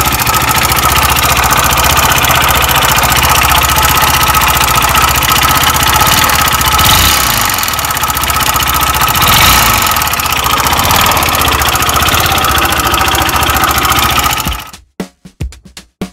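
Yamaha Majesty 125 scooter's single-cylinder engine running with a loud, rapid knocking, the abnormal noise the owner traces to a worn crankshaft. Near the end the engine sound stops suddenly and a drum beat starts.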